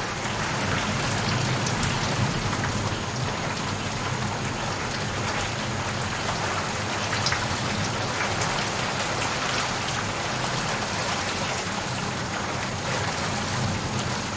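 Steady, heavy rain with many fine drop hits pattering on a surface and a low rumble beneath.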